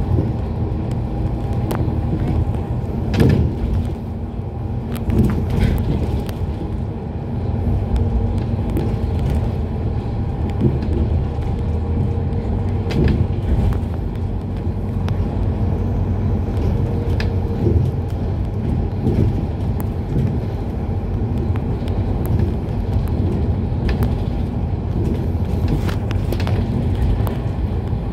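Inside an ADL Enviro 400 Hybrid double-decker bus on the move, heard from the upper deck: a steady low drive drone with faint steady tones, and short knocks and rattles from the body every few seconds.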